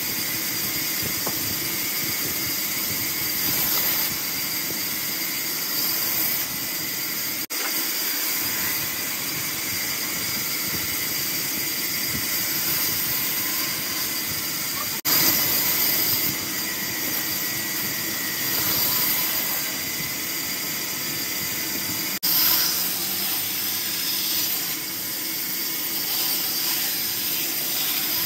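Large vertical band saw running, its blade cutting through logs. The sound is a steady whine over even noise, with three very short breaks.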